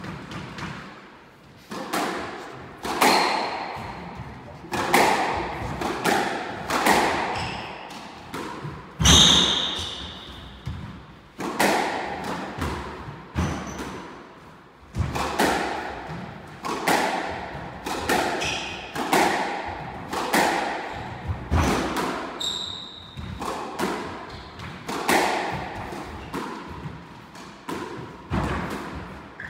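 Squash rally: the ball struck by rackets and smacking off the court walls about once a second, each hit echoing around the court, starting about two seconds in. Short squeaks from players' shoes on the wooden floor come between the hits.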